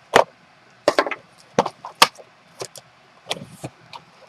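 A cardboard trading-card box and its packs being handled and opened: about eight sharp knocks and rustles, irregularly spaced.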